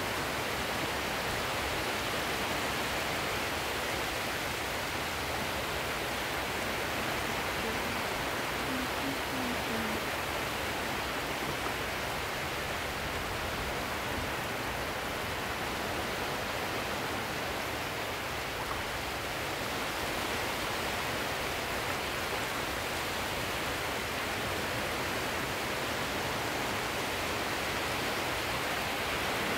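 Steady, even wash of sea waves, with little rise and fall.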